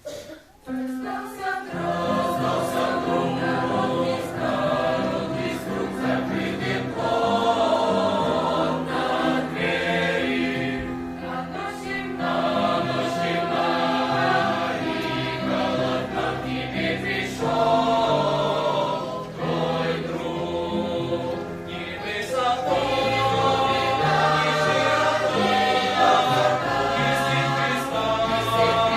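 Youth church choir singing a Christian hymn in several voice parts, coming in about a second and a half in.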